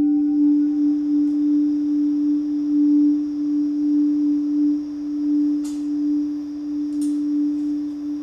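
A single steady pure tone held at one middle-low pitch, a sustained drone from the film's music score, its loudness gently swelling and fading. A faint high hiss lies underneath, with two faint ticks near the end.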